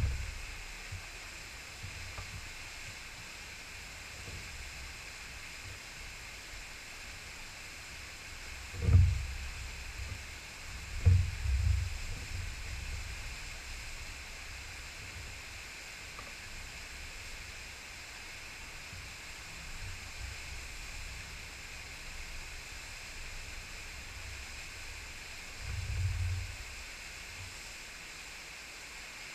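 Small waterfall pouring into a rocky creek, a steady rushing hiss. A few brief low rumbles break in, about a third of the way through, again shortly after, and near the end.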